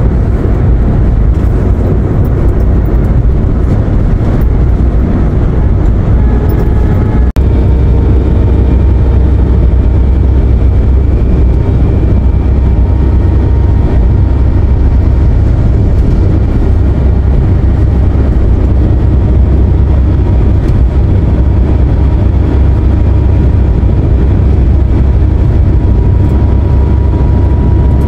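Road noise inside a passenger van cruising on a highway: a loud, steady low rumble of engine and tyres, with a momentary dropout about seven seconds in.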